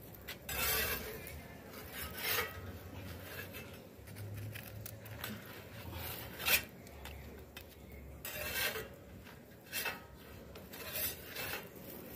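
A metal spatula scraping and rasping against a hot metal comal as a folded, crisp tlayuda is pushed and turned, in short separate strokes every second or two. The tlayuda is kept moving so it won't burn on the very hot comal.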